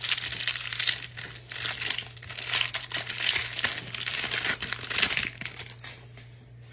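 Foil wrapper of a trading-card pack being handled and torn open, an irregular crinkling that dies away about five seconds in.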